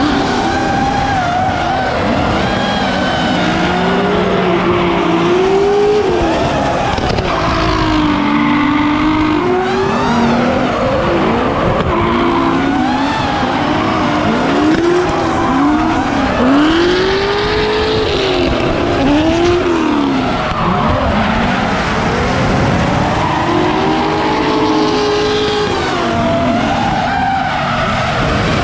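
Several drift cars sliding in tandem, their engines revving up and down over and over as the throttle is worked through the corners, with tyres squealing and skidding.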